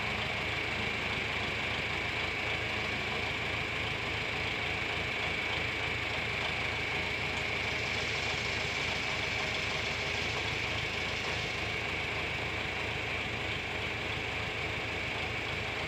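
Tractor engine idling steadily, with a steady high-pitched tone running over it.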